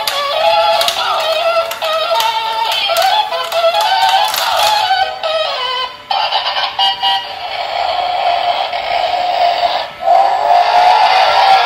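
Battery-operated stunt car toy playing its built-in electronic tune, a melody of short notes from its small speaker. The tune breaks off briefly about six seconds in and again near ten seconds.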